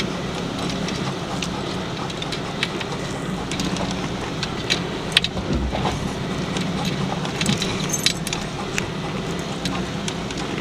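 Cabin noise of a 2006 Jeep Commander driving slowly over a rutted dirt trail: a steady low engine and tyre drone with frequent light clicks and jingling rattles inside the cabin.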